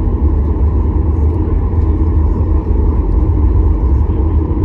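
Steady low rumble inside the cabin of a Boeing 737 MAX 8 as it rolls along the ground after landing, its CFM LEAP-1B engines running.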